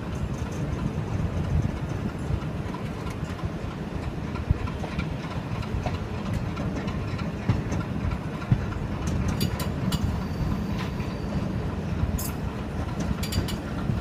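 Express train's coaches rolling over the rails on a curve, heard from an open coach doorway: a steady low rumble with sharp wheel clicks, bunched about nine and twelve seconds in. Under it, the diesel locomotive's engine works hard as the train accelerates.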